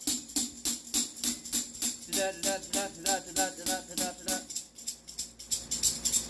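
Steel tambourine jingles mounted on a drumstick, shaken by each stroke in a steady groove of about three to four strokes a second. Each stroke sets off several jingle notes.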